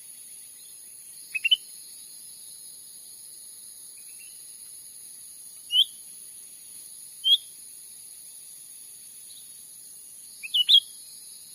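Cucak ranting calls from a bird-luring recording: short, sharp rising chirps, some single and some in quick clusters of two or three, a few seconds apart, over a steady high-pitched hiss.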